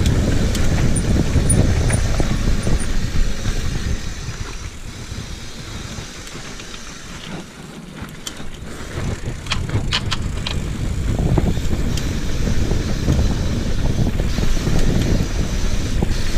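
Mountain bike rolling fast over rough stone lanes, heard from a camera on the rider: a steady low rumble of wind and tyre and frame noise, quieter for a few seconds in the middle, with a few sharp clicks soon after.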